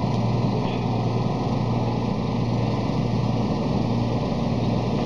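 Engine of a crane lorry running steadily, a low, even drone, driving the truck-mounted hydraulic crane as it lifts a load.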